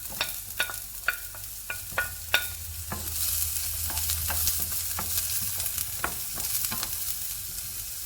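Chopped onions and garlic frying in sunflower oil in a pan, sizzling as they are stirred. A utensil knocks against the pan about twice a second at first. The sizzle grows stronger from about three seconds in.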